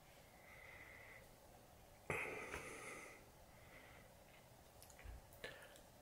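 A man sniffing a turkey egg held under his nose: faint breaths through the nose, the strongest about two seconds in, with two faint clicks near the end.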